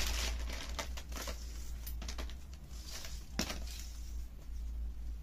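Dola silk suit fabric rustling in short, irregular swishes as it is handled and smoothed flat by hand, over a steady low hum.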